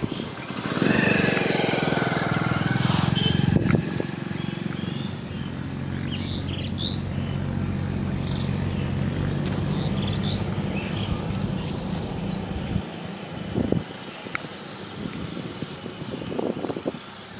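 An engine running steadily, loudest in the first few seconds, then fading out about thirteen seconds in.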